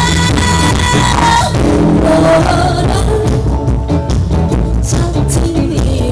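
A small live band with electric guitar and upright double bass plays, with a lead melody in long held notes over a steady bass line.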